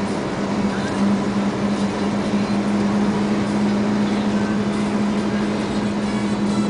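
Engine and tyre noise heard inside a moving vehicle's cabin: a steady drone with a constant low hum.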